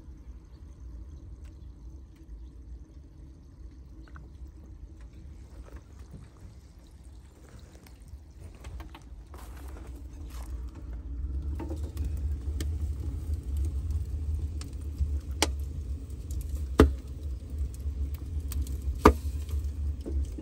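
Wood fire crackling in the Snorkel hot tub's stove: several sharp pops in the last few seconds over a low rumble that grows louder about halfway through.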